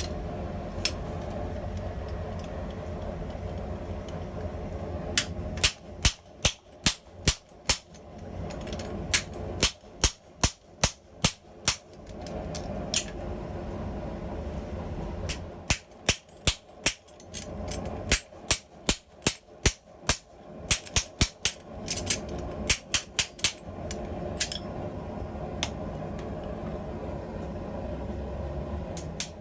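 Hand hammer striking a blacksmith's guillotine tool while forging hot steel: runs of sharp blows at about three a second, with short pauses between the runs, over a low steady hum.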